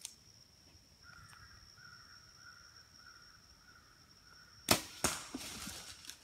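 Compound bow shot at a whitetail buck: a sharp, loud crack of the string release about four and a half seconds in, a second crack as the arrow strikes a third of a second later, then the deer crashing away through brush and dry leaves. A faint steady high tone runs underneath.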